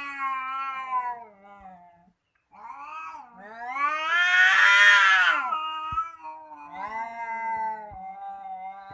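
Domestic cats caterwauling at each other in a threat standoff: long, wavering, drawn-out yowls. After a short pause about two seconds in, one yowl swells to the loudest point and falls away, and lower yowls follow.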